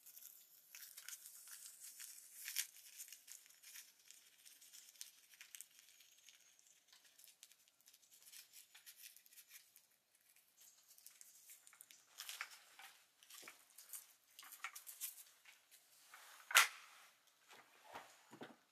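Quiet crinkling and crackling of a paper cartridge being handled at the tipped-up breech chamber of a Hall breech-loading flintlock rifle, with light clicks of the gun being handled. One sharper click comes about three-quarters of the way through.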